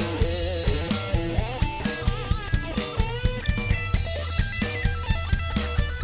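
Rock outro music with drums and guitar over a steady beat.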